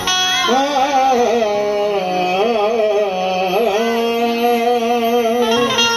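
Qawwali music: a wordless, ornamented vocal line that bends up and down in pitch, over sustained harmonium chords; the melody settles into steadier held notes toward the end.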